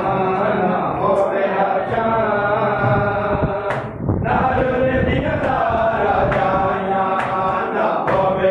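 Male voices chanting a noha, a Shia lament for Imam Hussain, with a short break about four seconds in. From about five seconds on, sharp slaps come roughly twice a second: the mourners' chest-beating (matam) keeping time to the chant.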